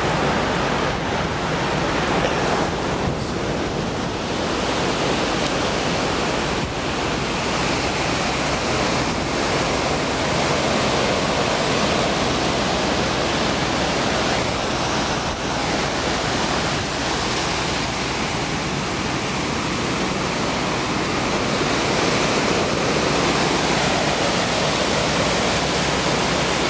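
Ocean surf washing onto a sandy beach: a steady rush of noise that swells and eases slowly.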